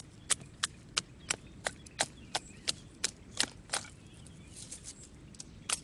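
Sharp woody knocks in a quick, even run of about three a second, followed by a few fainter scattered cracks and one more loud knock near the end.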